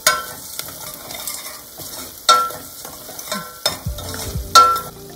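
Ground spices frying in hot oil with onion and ginger-garlic paste in a stainless steel pot, sizzling while a metal slotted spoon stirs them. The spoon strikes the pot four times with a short ringing clank, loudest about two seconds in and near the end.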